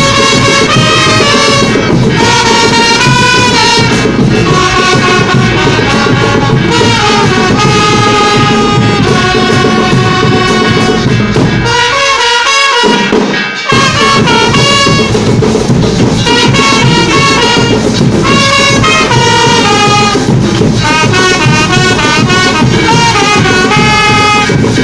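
Marching band of trumpets and drums playing a tune together, loud and steady. About twelve seconds in the band breaks off for about a second and a half, then comes back in full.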